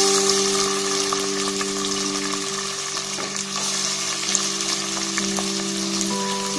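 Chopped onions and green chillies sizzling in hot oil in a pan: a steady frying hiss, just after they were dropped in.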